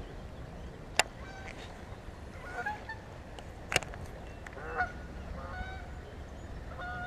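Geese honking in a loose series of short calls. Two sharp clicks come about a second in and again a little before the four-second mark.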